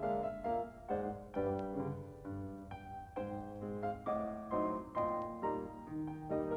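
Solo piano music, chords struck at a steady pace of about two a second.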